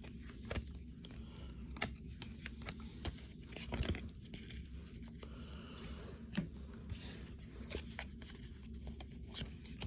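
Hands handling baseball cards and their pack wrappers: scattered soft clicks of cards, with a few brief crinkles and tears of wrapper.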